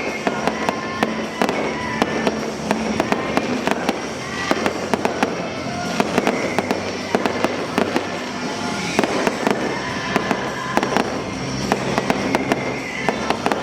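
Aerial fireworks bursting in quick succession, many sharp bangs and crackles one after another, with music playing underneath.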